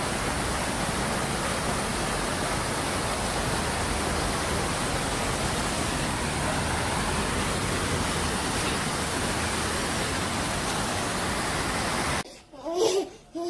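Steady rushing noise, even from low to high pitch, that cuts off abruptly near the end. A baby then babbles briefly.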